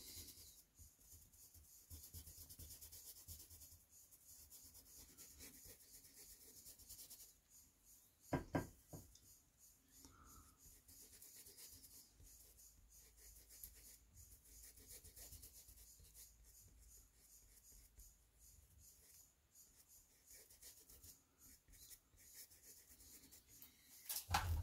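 Faint, soft scratching of a paintbrush rubbing back and forth on canvas while blending paint, with one brief knock about eight seconds in.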